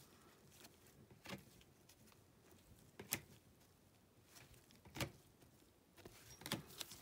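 Four faint clicks about two seconds apart, as stiff chrome trading cards are slid one by one from the front to the back of a small stack in gloved hands; otherwise near silence.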